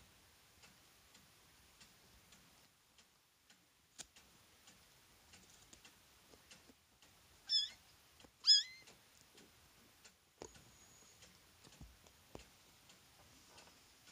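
Kittens play-fighting: two short, high-pitched squeaky mews about a second apart past the middle, the second rising at its start, amid faint scattered clicks.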